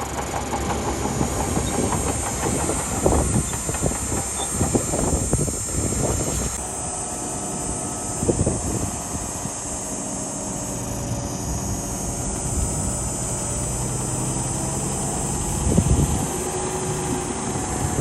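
Crawler bulldozer working: its diesel engine running under steady clanking and rattling of steel tracks. The sound changes abruptly about six and a half seconds in to a steadier engine drone, with only a couple of single clanks after that.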